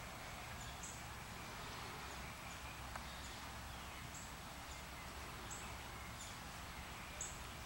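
Outdoor yard ambience: a steady low hiss with short, very high-pitched chirps repeating every second or two, and a single faint click about three seconds in.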